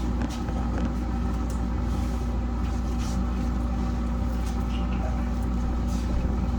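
Steady mechanical hum, a low drone with several steady tones in it, with scattered light clicks and scrapes over it.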